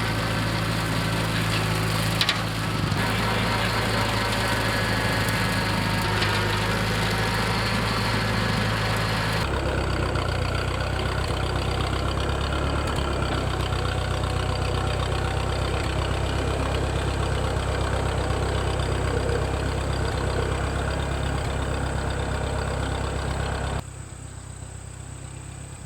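A 1964 Massey Ferguson 35 tractor engine running steadily. Its note shifts abruptly about a third of the way in, and the engine sound drops much quieter near the end.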